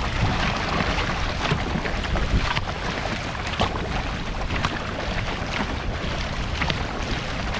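Dragon boat paddles stroking and splashing through the water, short splashes scattered over a steady rush of water, with wind buffeting the microphone.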